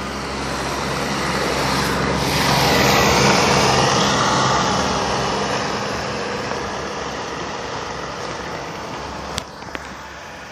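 A car driving past: engine and tyre noise swell to a peak about three seconds in, then fade slowly away. Two sharp clicks come near the end.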